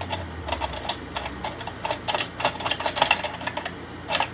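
Irregular clicks and clatter of small plastic toy parts being handled and sorted through, coming thickest about two to three seconds in.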